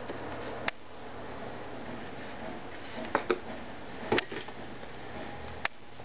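Cardboard gift-set packaging being handled: an inner box slid out of its sleeve, turned over and laid down, giving about half a dozen short sharp taps and clicks over steady room noise.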